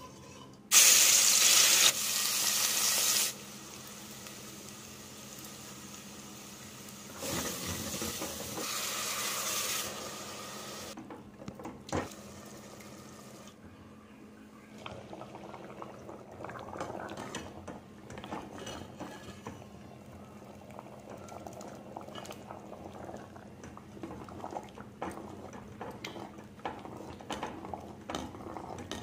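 Running water in two stretches, the first loud and about two seconds long. Then a metal spoon stirring and scraping in a steel pot of chickpea gravy, with many scattered small clicks.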